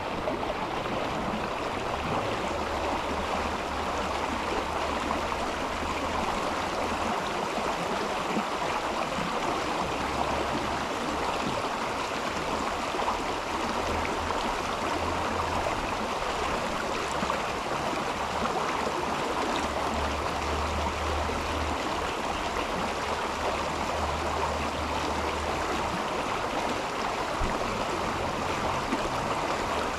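Mountain river flowing steadily, an even rush of water, with a low rumble that comes and goes underneath.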